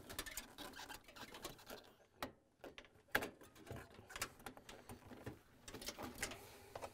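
Faint, irregular clicks and scrapes of a flathead screwdriver and gloved hands pressing the locking tab of a plastic wiring-harness plug and working it free of a metal bracket.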